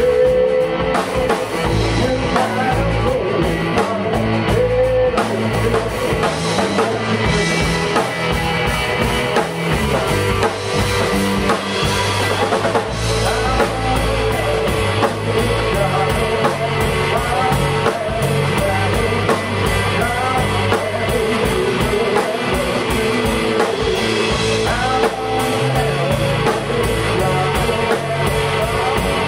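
A rock band playing live: electric guitar, electric bass guitar and a drum kit, with a steady beat.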